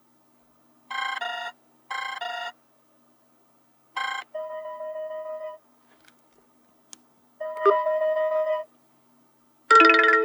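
Ringtones playing one after another from a Vodafone Smart Platinum 7 smartphone's speaker. A short electronic two-tone trill sounds twice, then a chirp runs into a held electronic chord. After a few faint clicks the chord sounds again, and a louder, fuller ringtone begins near the end.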